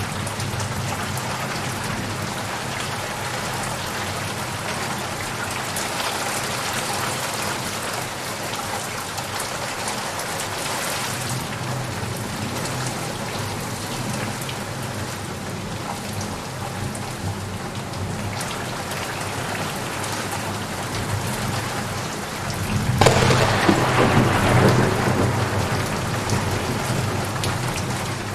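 Steady rain falling on a surface, with a roll of thunder rising about 23 seconds in and fading over the next few seconds.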